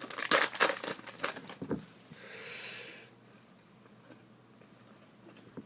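Hockey card pack wrapper crinkling and cards being handled, with quick light clicks and rustles, then a soft hiss about two seconds in lasting about a second.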